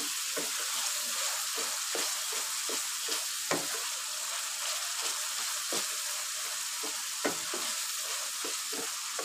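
Tomato and onion masala sizzling in hot ghee in a wok while a wooden spatula stirs and scrapes it: a steady hiss with irregular scrapes and knocks of the spatula on the pan, a few of them louder.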